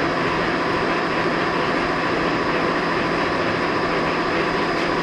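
Monarch 10EE lathe running under power with its spindle turning, a steady machine hum carrying a constant high whine.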